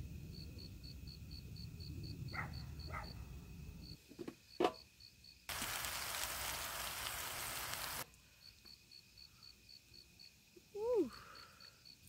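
Crickets chirping in an even, fast pulse, over a low rumbling noise for the first four seconds. A little past the middle, a loud steady hiss starts and stops abruptly, lasting about two and a half seconds. Near the end comes a short, falling squeak-like call.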